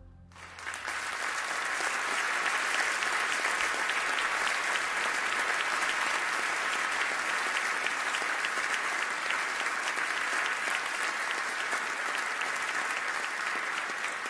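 Concert audience applauding steadily, the clapping starting about half a second in as the last held low notes of the music die away.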